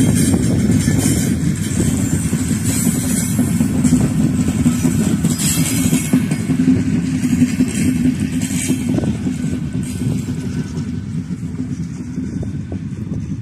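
Intercity passenger coaches rolling past on the track, a continuous rumble of wheels on rails with high-pitched rattles. The sound fades steadily as the train moves away.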